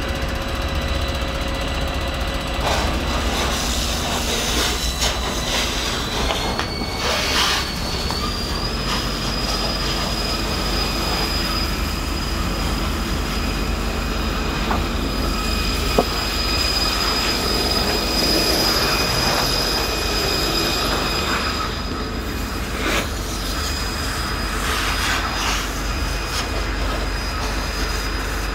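A car fire being fought: a loud, steady rushing noise over a low rumble, with a high, steady whine running through it and one sharp pop about halfway through.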